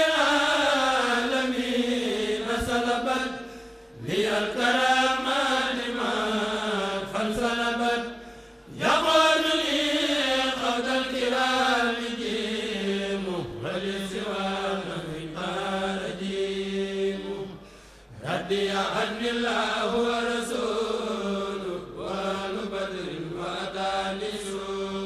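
Men's voices chanting an Arabic khassida (Mouride devotional poem) without instruments, in long drawn-out melodic phrases broken by short pauses for breath every few seconds.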